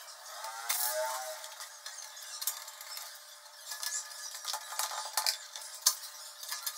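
Screwdriver driving the large screws that hold a power supply unit to a steel PC case: a run of light metallic clicks, ticks and scrapes.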